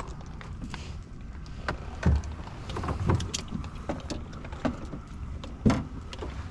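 Irregular knocks, clunks and light rattles on a fishing boat as a just-landed small channel catfish is handled, two of the knocks louder than the rest, over a low steady rumble.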